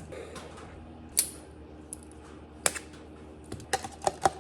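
Sharp clicks and taps, some with a slight metallic ring: two single clicks, then a quick run of them near the end.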